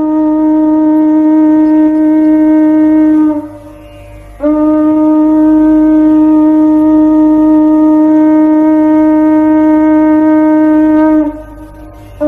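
Conch shell (shankh) blown in long, steady, single-pitched notes: one note held for about three seconds, a short break, then a long note of about seven seconds that breaks off near the end.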